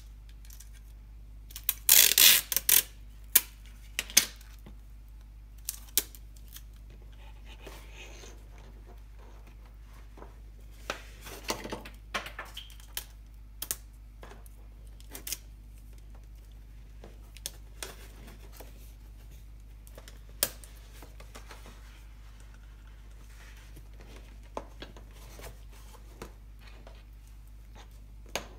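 Hands handling the plastic-bottle fuselage and parts of a small RC plane on a work mat: scattered clicks, taps and crinkling plastic. There is a dense run of loud clicks about two seconds in and a longer rustle around twelve seconds, then only odd ticks.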